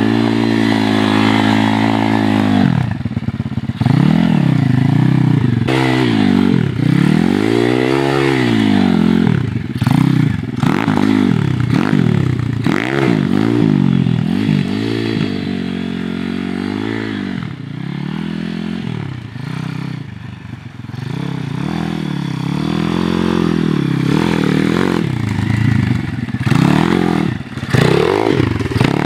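Apollo RFZ pit bike's single-cylinder four-stroke engine revving up and down again and again as it is ridden hard, its pitch rising and falling every second or two. It drops quieter for a few seconds about two-thirds of the way in, then picks up again.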